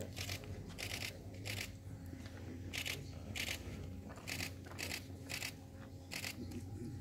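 Camera shutters clicking, about nine short crisp clicks at irregular intervals, as photographers snap a ceremonial first move, over a low hall hum.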